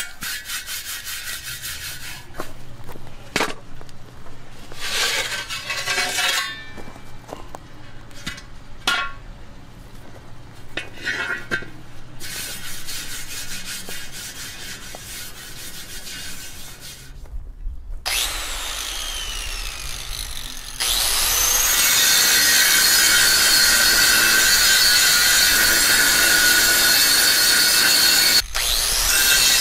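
Metal being worked with tools: spells of rasping, scraping strokes, then from about two-thirds of the way in a loud, steady grinding of a power tool on steel.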